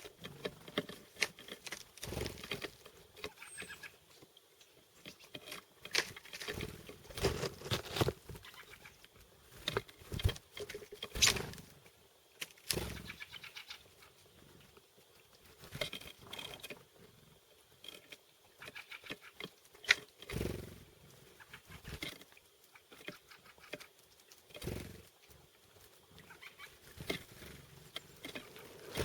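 Irregular sharp taps and knocks from chickadees pecking and hammering at sunflower and pumpkin seeds, some louder than others.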